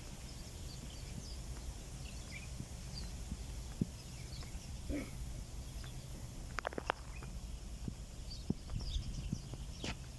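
Outdoor ambience: a steady low rumble with scattered faint bird chirps, and a few sharp clicks a little past the middle and near the end.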